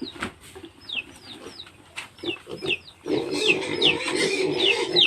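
Chicken chicks peeping: a string of short, high chirps, each falling in pitch. About three seconds in, a steady low hum joins and the sound gets louder.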